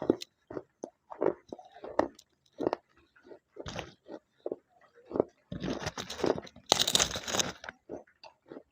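Close-miked crunching and chewing of slate pencil and red clay: irregular sharp crunches several times a second, with a longer stretch of dense grinding crunches about six seconds in.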